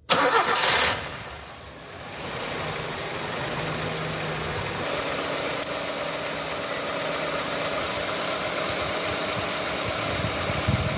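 Car engine starting: a loud burst for about the first second as it fires, then it settles into a steady idle.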